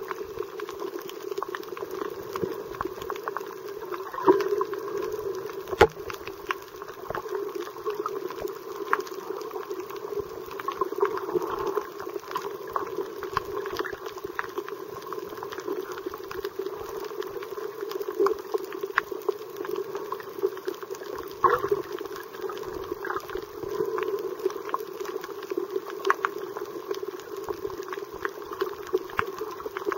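Underwater noise picked up by a camera held beneath the sea surface: a steady bubbling, watery rush with frequent small clicks and pops, a few sharper ones standing out.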